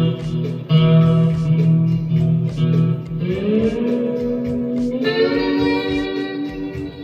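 Lap steel guitar played through a gold foil bridge pickup: sustained plucked notes, with the slide gliding up in pitch about three seconds in and again around five seconds.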